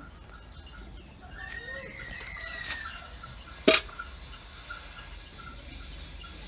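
Rural background of a bird calling once with a rising-then-falling note and a small chirp repeating about three times a second. About halfway through, a single sharp knock is the loudest sound.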